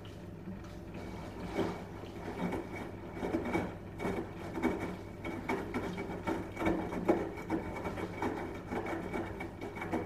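Front-loading washing machine running a wash: the drum turns and the laundry tumbles with irregular soft knocks and swishes over a steady low hum.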